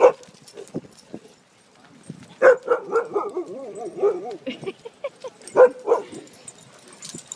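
Dogs barking and vocalising while they play: a sharp bark at the start, then a run of wavering whining, yelping calls, and two more barks about two-thirds of the way through.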